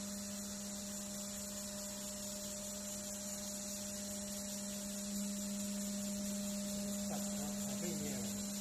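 CNC wood router running, its spindle giving a steady, even-pitched hum with a high hiss. Near the end a few tones fall in pitch.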